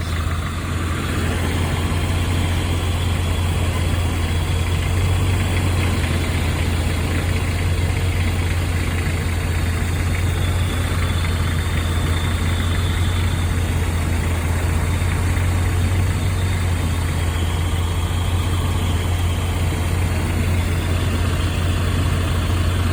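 1995 Nissan truck's 2.4-litre four-cylinder engine idling steadily, with a lifter tap and knock that the uploader says dies away within the first few seconds after a Tribo-MAX oil additive was put in.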